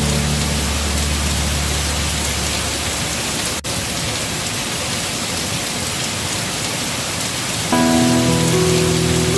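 Heavy rain falling steadily on foliage, with a soft backing of sustained music chords that grows louder about three-quarters of the way in. There is a brief dropout in the sound just over a third of the way through.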